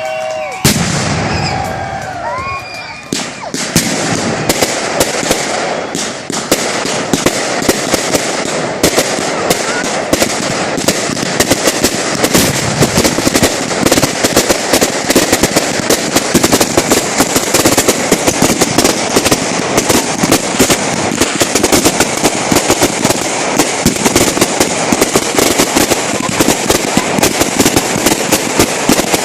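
Fireworks crackling: a few whistles in the first seconds, then a long, dense run of rapid sharp pops and crackles, like a string of firecrackers going off, that keeps going without a break.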